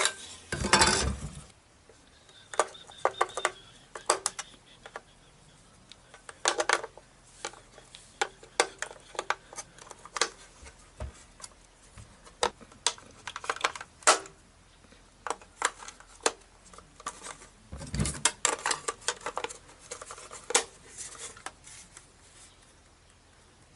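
Sharp plastic clicks and rattles of a radio-control transmitter being handled while AA batteries are fitted into its battery compartment. There is a louder clatter near the start and a heavier knock about 18 seconds in.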